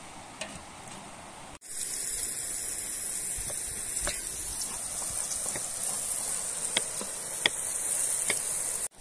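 Steady high-pitched insect drone, with a few light, sharp knife taps on a wooden cutting board as garlic is cut.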